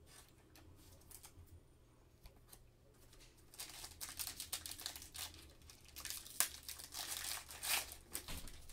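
Plastic trading-card pack wrapper crinkling and tearing as it is handled and ripped open. It is faint at first and turns into dense crackling from about three and a half seconds in.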